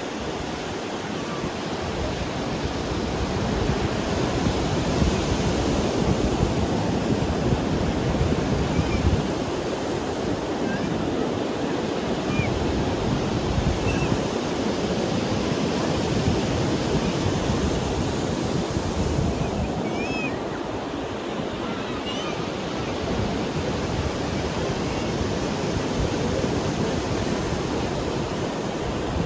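Ocean waves breaking and washing on a beach, a steady rush of surf that swells louder around four seconds in and again in the middle before easing off.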